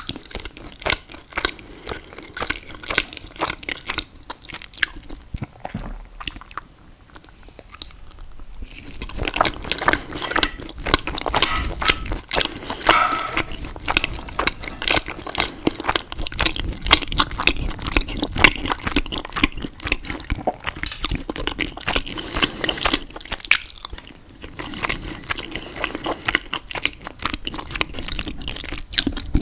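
Close-miked eating sounds: wet chewing and squishing of saucy pasta and sausage, with scattered crisp bites. There is a quieter lull about six to nine seconds in.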